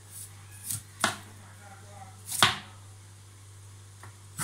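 Large kitchen knife chopping broccoli on a plastic cutting board: six irregular cuts, the loudest about halfway through, over a steady low hum.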